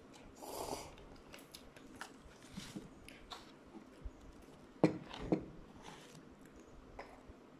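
A slurp of instant noodles from a paper cup, then chewing with small mouth clicks. Near the middle, two sharp knocks about half a second apart, the loudest sounds here.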